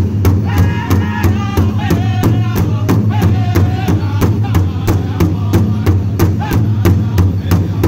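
Five-man powwow drum group singing in unison over a large hide drum struck together with drumsticks, a steady beat of about four strokes a second. The singing is high-pitched and wavering in the first few seconds, then goes on in quieter, falling phrases over the beat.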